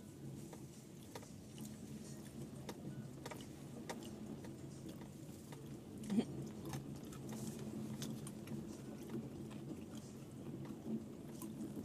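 Low, steady engine hum inside a Subaru Forester's cabin as it drives slowly over packed snow and ice, with irregular crunches and clicks from the tyres and one sharper knock about six seconds in.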